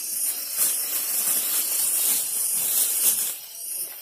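Close, hissy rustling from someone moving about and handling things right by the microphone.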